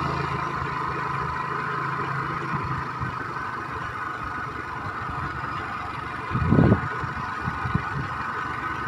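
Engine of a slow-moving road vehicle running steadily, its low hum easing off after about three seconds. There is a brief, louder low rumble about six and a half seconds in.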